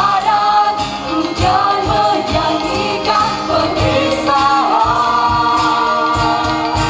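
A group of voices singing a poem set to music, over instrumental accompaniment with a steady low beat.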